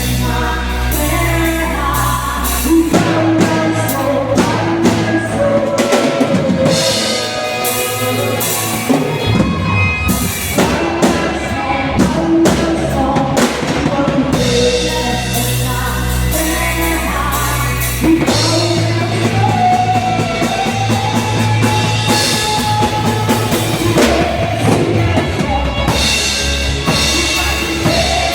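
Gospel worship song with singing over a drum kit, bass and other instruments, playing on at a steady loud level.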